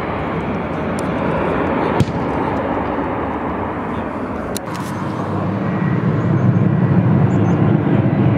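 Jet airliner engines at takeoff power as a twin-jet rolls down the runway, a steady noise. After a sudden change about halfway through, a louder and deeper rumble of a jet airliner passing low overhead.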